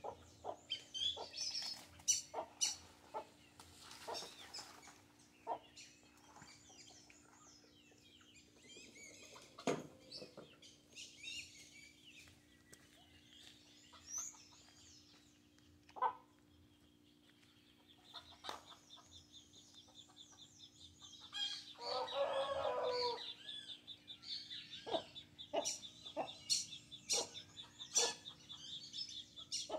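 Free-range chickens clucking quietly while they feed, with scattered short calls and clicks. A high pulsing trill comes in about two-thirds of the way through, and a louder hen call sounds briefly just after it.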